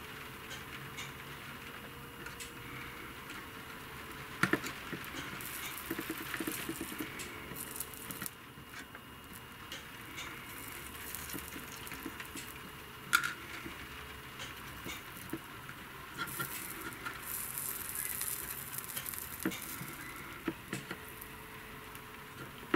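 Flux sizzling and crackling under a hot soldering iron tip, with scattered small pops and a couple of sharper clicks.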